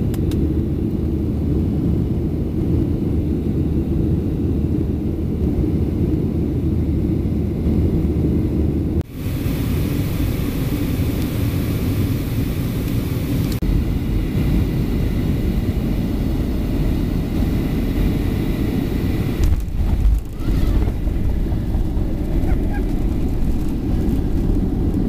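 Airliner cabin noise on the descent and landing: a loud, steady low rumble of jet engines and airflow. It drops out abruptly twice, about 9 seconds in and again about 20 seconds in.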